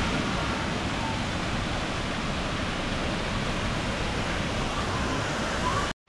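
Small waterfall: water pouring over a low rock ledge into a pool, making a steady rushing sound.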